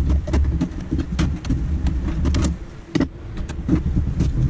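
Clicks, knocks and rattles of a graphics card being unlatched and pulled out of a desktop PC's motherboard slot inside a metal case, over a steady low hum.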